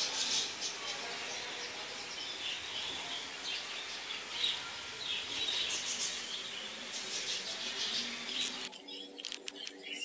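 A room full of budgerigars and other small parakeets chirping and chattering busily, easing off near the end.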